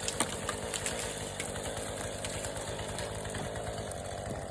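Chainsaw engine idling steadily, with a few light clicks in the first second.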